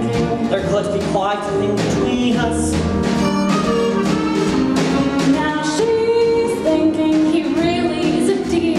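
Live pit orchestra playing a Broadway show tune, with a singing voice over it.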